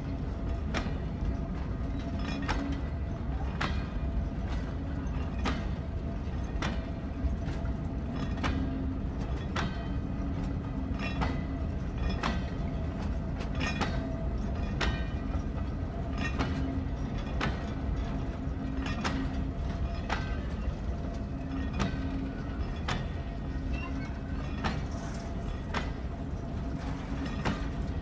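Rake of HAA coal hopper wagons rolling slowly by, a steady low rumble with the wheels clicking over rail joints about once a second.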